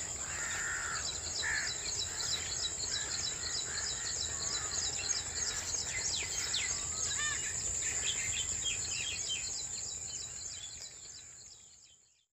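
Countryside dawn chorus: many birds chirping and calling over a steady high-pitched insect drone. It fades out near the end.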